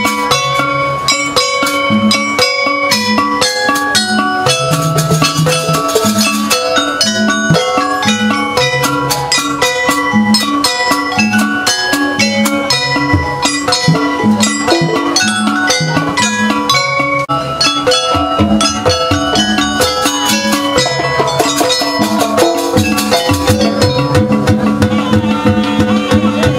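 Jaranan buto gamelan accompaniment playing continuously: bright struck metal notes in quick succession over steady drumming.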